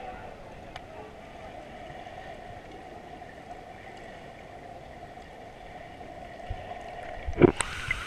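Muffled, steady rush of churning waterfall water heard from underwater through a GoPro housing. Near the end a loud splash as the camera breaks the surface, and the brighter sound of falling water comes in.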